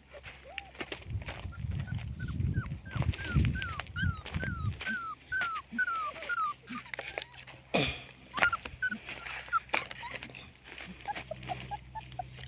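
Puppies whimpering in a run of short, high squeaks, about two a second, with a quicker run of lower squeaks near the end.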